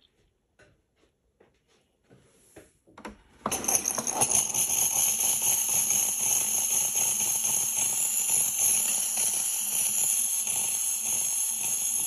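Steam wand of a Swan retro pump espresso machine hissing steadily into a mug, starting about three and a half seconds in after a few faint clicks.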